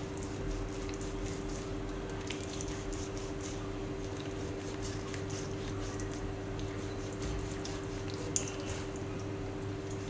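Kitchen knife cutting incisions into raw boneless chicken thigh on a plastic cutting board: soft, irregular little cuts and ticks of the blade, with one sharper tap about eight seconds in. A steady low hum runs underneath.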